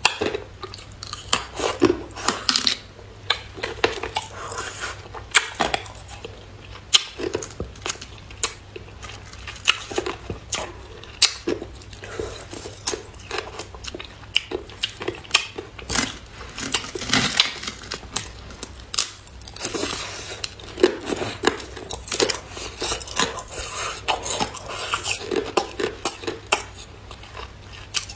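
Thin sheets of clear ice being bitten and chewed: rapid, irregular sharp cracks and crunches as the ice snaps between the teeth.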